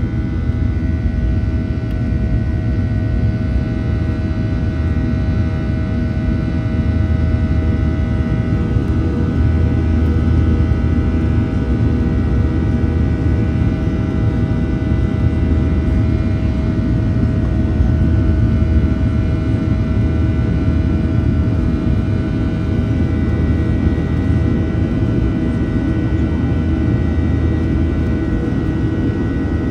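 Cabin noise of a Boeing 737-800 with its CFM56-7B turbofan engines running steadily: a loud, even rumble with a steady whine of several tones above it.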